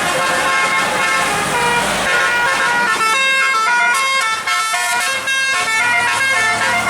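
Tour bus's multi-tone telolet (basuri) horn playing a fast melody of stepped notes, over a low engine rumble in the first couple of seconds. From about three seconds in the notes come thicker and higher.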